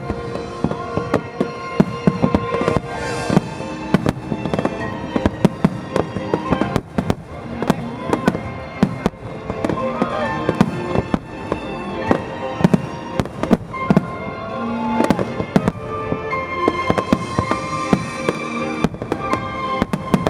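Aerial fireworks display: many sharp bangs and crackling bursts in quick, uneven succession, with music playing alongside.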